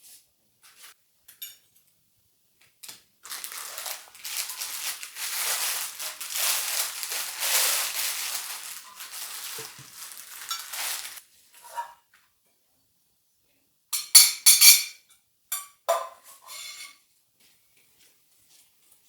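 Kitchen work sounds: about eight seconds of a continuous hissing rush, then several sharp metallic clinks of utensils with brief ringing about fourteen seconds in.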